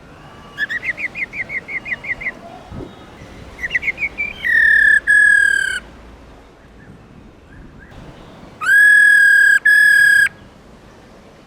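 Black-throated laughingthrush calling. A quick run of about ten short rising notes is followed by a shorter run, then two long, loud, level calls; the second call breaks briefly partway through.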